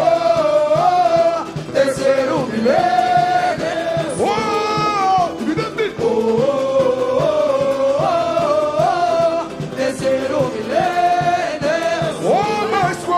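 Samba-enredo performed live by a samba school's singers and band: voices carry a melodic phrase that comes round twice, over the accompaniment.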